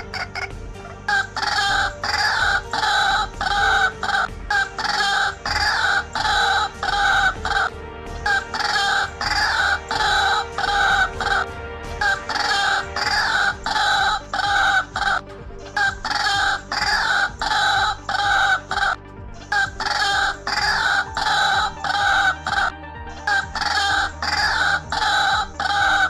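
White-breasted waterhen's lure call played back as a trapping recording: the male's breeding-season call, short notes repeated two to three a second in long runs broken by brief pauses. Soft background music runs underneath.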